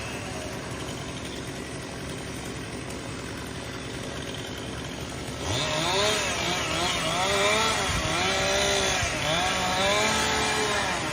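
Chainsaw engine running steadily, then from about halfway revved again and again, its pitch rising and falling with each rev.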